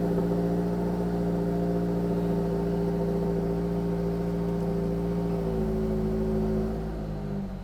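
Turbocharged Subaru BRZ's 2.4-litre flat-four idling steadily on a cold start, still cold and not too loud; the idle note steps down slightly and gets a little quieter near the end.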